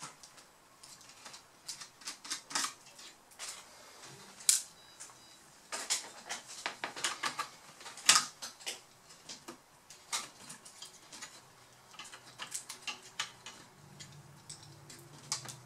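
Irregular sharp clicks and taps of a laptop's plastic chassis and small parts being worked on by hand with a small screwdriver. A low steady hum comes in near the end.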